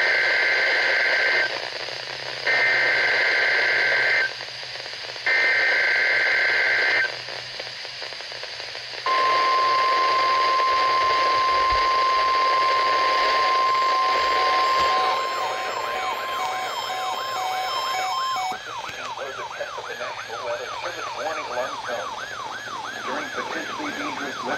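NOAA Weather Radio received through static: three bursts of screeching SAME data tones (the Emergency Alert System header), then a long, steady 1050 Hz warning alarm tone for the weekly test. Near the end the alarm tone gives way to a wavering, warbling tone with faint beeps over the hiss.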